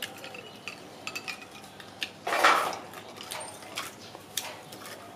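Ice clinking against a drinking glass as a straw stirs it, in scattered light clicks, with one louder noisy burst lasting under a second about two and a half seconds in.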